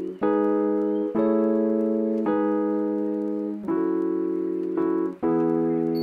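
Background music: soft, held keyboard chords changing about once a second, with no beat.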